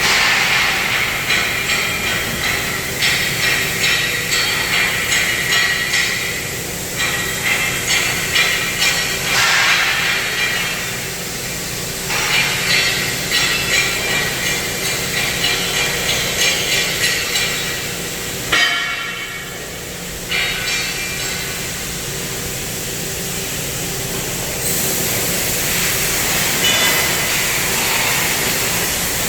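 Steady hissing and hum of a CNC metal-cutting machine at work, with stretches of rapid rhythmic knocking.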